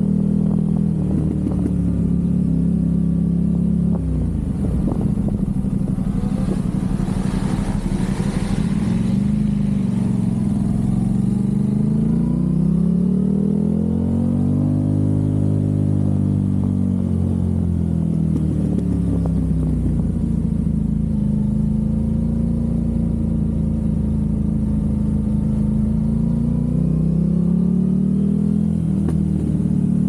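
Aprilia RS660's parallel-twin engine through a Mivv Delta Race exhaust, heard from on the bike while riding at a steady cruise. Between about four and nine seconds in there is a spell of crackling, and around halfway the engine note rises and falls again before settling back to an even tone.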